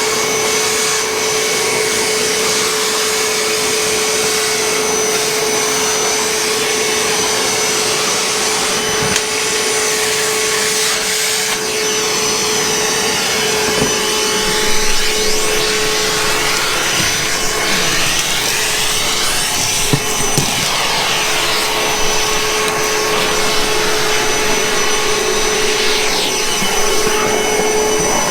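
Milwaukee M18 cordless shop vac running steadily while vacuuming a floor: an even motor whine under a rush of air that shifts as the nozzle moves. A few light knocks come through as debris is picked up.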